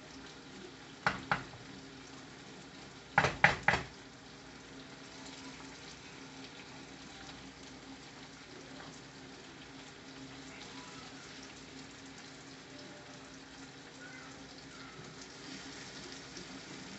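Food sizzling in hot oil in a frying pan. One sharp clack comes about a second in, and a quick run of several more around three seconds in.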